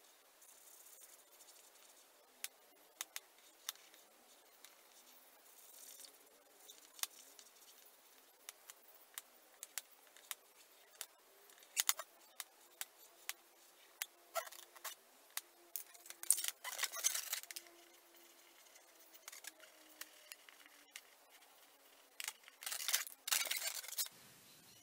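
Marker pen drawing on an inflated latex 260Q modelling balloon: many faint taps and clicks of the felt tip on the rubber, with a few brief scratchy bursts of pen and hand rubbing the taut latex. Near the end the balloon figure is handled, giving a louder spell of latex rubbing.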